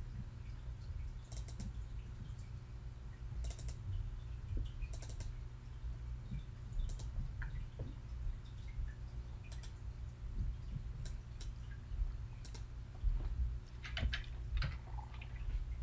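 Computer mouse clicks every second or two, several of them quick double-clicks, then a short run of keyboard keystrokes near the end, over a low steady hum.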